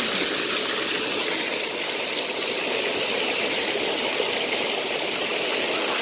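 Waterfall pouring close by, a steady rush of falling water heard from just behind the curtain of water.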